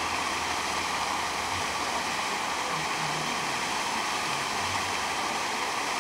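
Steady, loud rush of splashing water.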